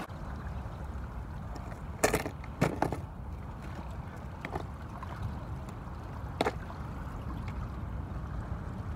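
Steady low rumble of wind and lapping water at the shoreline, broken by a few sharp clicks about two seconds in, again half a second later, and once more past six seconds.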